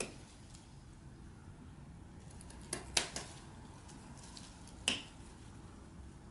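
Bonsai cutter biting into the dead wood of an American hornbeam's trunk stub: a sharp snip at the start, a quick run of three about three seconds in, and one more near five seconds.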